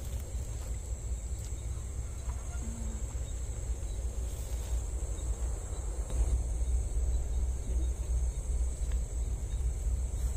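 Crickets and other night insects chirring steadily at a high pitch, over a steady low rumble that grows a little louder past the middle, with a few faint clicks.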